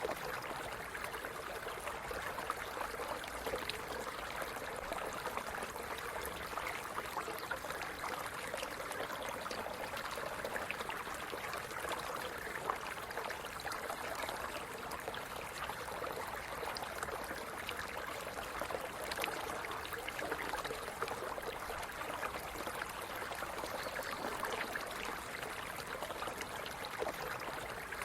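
Stream running steadily: water trickling and splashing over stones, with a constant gurgling wash dotted with small sharp droplet splashes.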